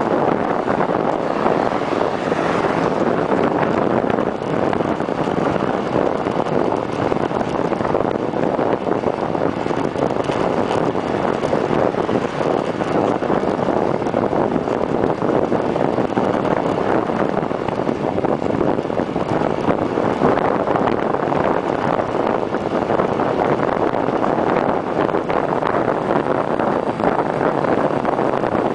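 Steady wind rush buffeting the microphone of a camera fixed on a bicycle's stem during a fast downhill ride.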